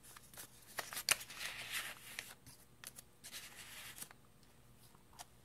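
Paper and card rustling and sliding as recipe cards are handled and tucked into a paper pocket in a journal, with a few light clicks; it dies away about four seconds in.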